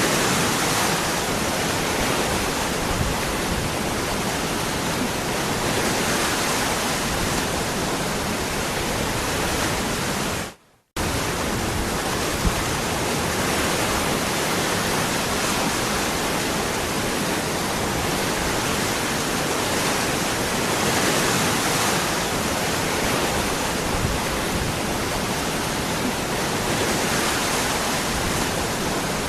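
Waterfall rushing in a steady, even roar of falling water. It cuts out abruptly for about half a second a third of the way through, then carries on unchanged.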